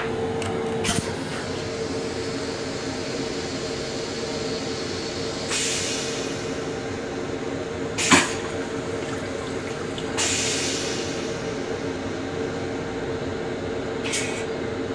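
Steady hum of an M7 electric railcar in service, heard inside its small restroom, with a held mid-pitched tone. A few light clicks come near the start and a sharp clack about eight seconds in, with brief soft hissing swells in between.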